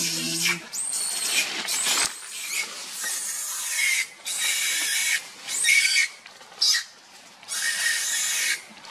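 Newborn long-tailed macaque screaming: a series of shrill, high-pitched cries, each about half a second to a second long, with short breaks between them.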